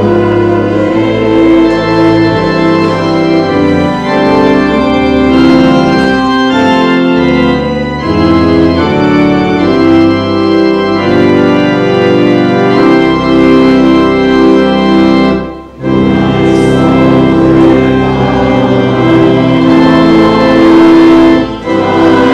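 Church organ playing full, sustained chords that change every second or so. The sound breaks off briefly about two-thirds of the way through and again just before the end.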